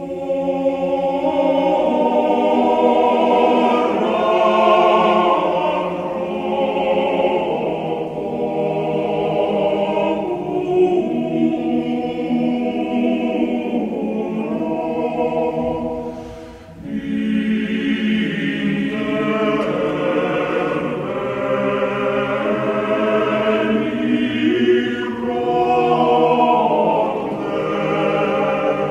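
A choir singing a sacred chant, with several voices together. The singing dips briefly about sixteen seconds in, then resumes.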